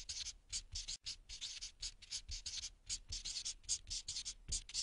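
A pen scratching across paper in quick, uneven writing strokes, about five a second.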